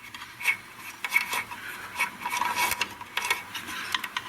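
Irregular small metal clicks and scrapes from motor-mount screws and their washers being undone and handled.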